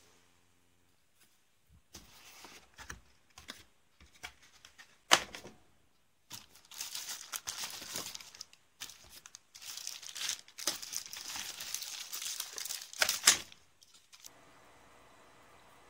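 Plastic bags and parts of a model kit being unpacked by hand: crinkling and rustling of cellophane, with a few sharp plastic clicks near 5 s and 13 s. The crinkling is densest in the second half. It gives way about 14 s in to a steady low hum.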